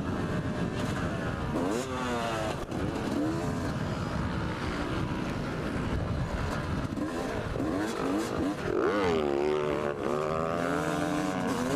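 Yamaha YZ250 two-stroke single-cylinder engine revving up and down as the motocross bike is ridden over a dirt track, its pitch repeatedly rising and dropping with throttle and gear changes. Wind rushes steadily over the helmet-mounted camera's microphone.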